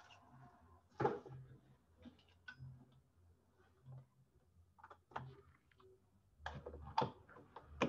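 Scattered, irregular clicks and knocks of handling as a cable is swapped to reconnect a key programmer, quiet, with several in quick succession near the end.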